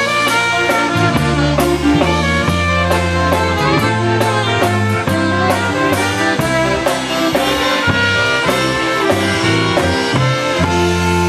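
Live polka dance band playing a waltz, with trumpet and saxophone carrying the melody over keyboard and drum kit with cymbal hits. Near the end the band moves onto a long held chord.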